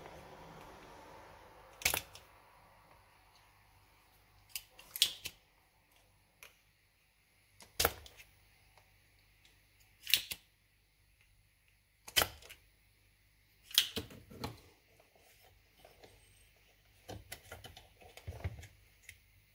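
A series of sharp clicks and knocks, about one every two seconds, with a quick cluster near the end, from hands and a soldering iron working on a coffee machine's circuit board and plastic housing while a part is desoldered.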